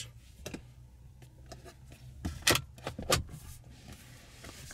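Rear center armrest and its pop-out plastic cup holders in a 2017 BMW 5 Series being handled and folded away: a few sharp plastic clicks and knocks, the loudest about two and a half and three seconds in.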